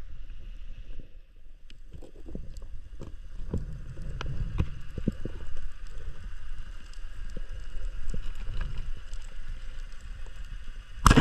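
Underwater sound of a diver finning over the seabed: a low water rumble with scattered small clicks. Near the end a single sharp, loud crack as the speargun fires at the fish.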